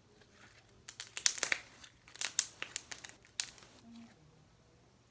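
Slime being squeezed and stretched by hand, making a run of sharp crackles and clicks. The crackling starts about a second in and lasts about two and a half seconds.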